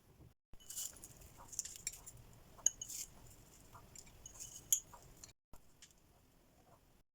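Light kitchen handling noises: irregular small clinks and short scraping rustles, with two sharper clicks about two seconds apart.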